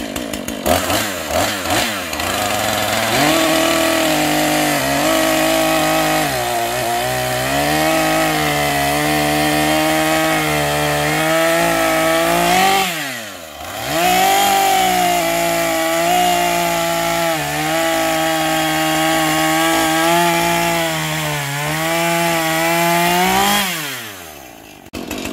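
Husqvarna 440e two-stroke chainsaw revved briefly a few times, then run at full throttle through two cuts in a log, the engine pitch sagging under load during each cut and falling away between them and again near the end. The chain has already felled and blocked one tree and may have been dulled by touching the soil.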